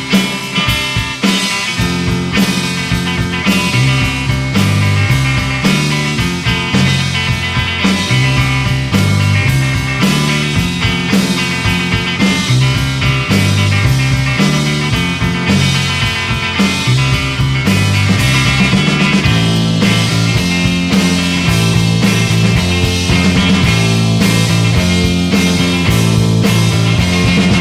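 Instrumental break of an AI-generated Britpop-style rock song: full band with a stepping bass line, drums and guitars, and no singing.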